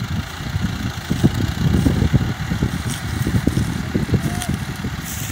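Ford 3610 tractor's three-cylinder diesel engine running at low speed as the tractor reverses, with an uneven low rumble.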